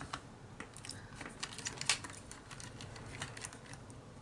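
Small screwdriver working screws out of a plastic RC car chassis: a run of light, irregular clicks and ticks, the loudest about two seconds in.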